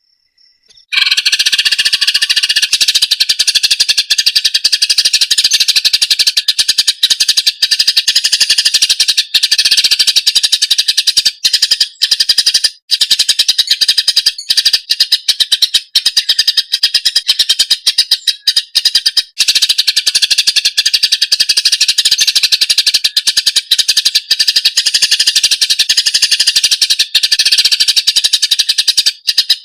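Cucak ijo (green leafbird) singing a loud, continuous, rapid chattering song, starting about a second in after a brief silence.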